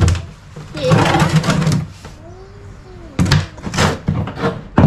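Freshly caught live fish, snakeskin gourami and snakehead, flopping in a container: several sharp knocks and thuds, with a second of slapping and rustling about one second in.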